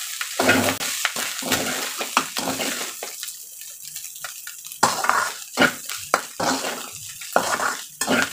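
Fried rice stir-frying in a wide metal pan: a metal spatula scraping and tossing the rice in irregular strokes over a steady sizzle. The strokes ease off for a moment about three seconds in, then pick up again.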